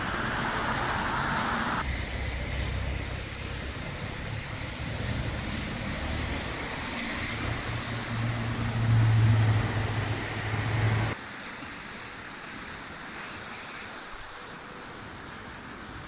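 Steady low traffic rumble with wind noise. The sound changes abruptly about two seconds in and again about eleven seconds in, and is quieter over the last few seconds.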